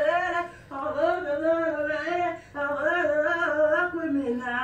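A woman singing wordless, wavering phrases unaccompanied, three of them, the last sliding down in pitch near the end.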